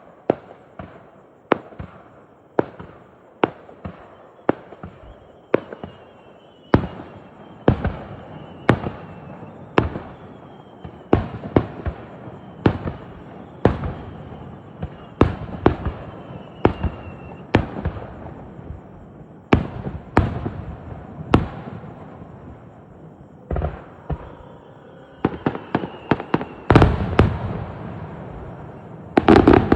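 Aerial fireworks shells bursting one after another, about one or two bangs a second. Several times a thin whistling tone glides slowly downward. The bangs come thicker and louder near the end, in a quick volley.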